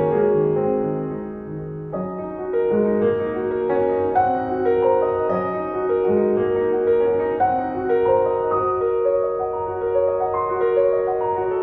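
Slow, gentle piano music: a melody of held notes over chords, easing off briefly about a second in before the next phrase begins.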